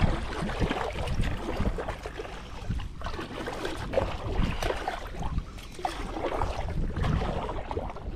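Water splashing and washing around a kayak on a moving river, in uneven surges over a low rumble.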